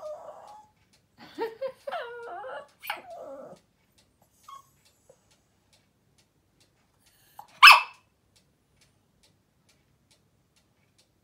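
Small dog whining and making wavering, drawn-out vocal noises for the first few seconds, then one sharp bark a little past halfway, the loudest sound. The dog is begging for food.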